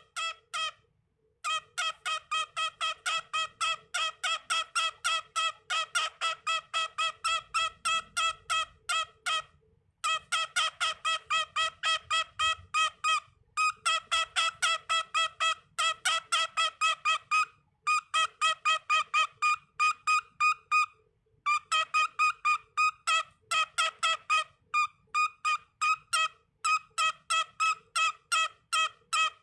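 Cockatiel chattering in long runs of short, evenly repeated chirps, about four a second, broken by a few short pauses.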